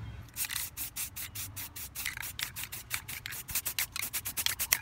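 A fast, even run of scratchy rubbing strokes, about five a second, starting a moment in.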